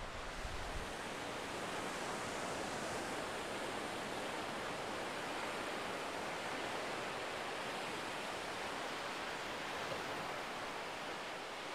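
Small sea waves washing onto a sandy beach, a steady, even rush of surf.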